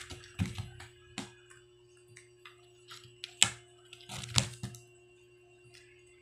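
Kitten playing on a carpet, pawing and batting at a small object and a spiral-bound booklet: scattered taps and clicks with a few sharper knocks, over a steady low hum.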